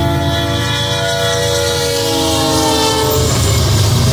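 Air horn of a BNSF GE diesel locomotive (ES44C4 leading) sounding a chord that drops in pitch as the lead unit passes, then cuts off about three seconds in. Under it and after it, the low rumble of the locomotives' engines and wheels on the rails continues.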